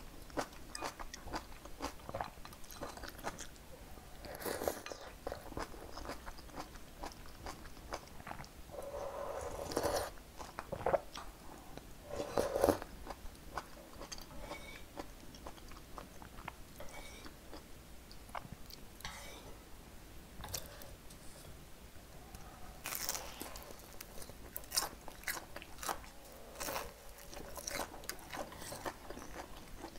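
Close-miked eating sounds of perilla seed sujebi soup, fresh cabbage kimchi and vegetable pancake: biting, chewing and many small crunches and mouth clicks. A few louder bursts come about 10, 12 and 23 seconds in.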